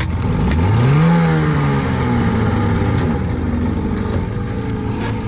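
Small outboard motor on an 8-ft jon boat revving up as the boat gets under way. Its pitch climbs for about half a second, then settles and eases slightly lower as the boat runs at speed over a steady rushing noise.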